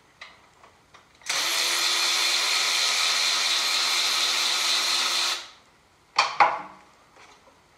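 Cordless power tool's motor running steadily for about four seconds, backing out a 3/8-inch bolt from a clamp on a mower engine. Two sharp metallic clinks follow shortly after it stops.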